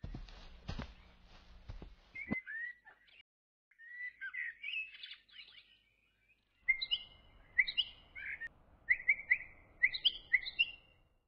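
Small birds chirping and twittering in short, quick notes, some sliding up or down, coming in repeated phrases in the second half. A few sharp clicks sound in the first couple of seconds.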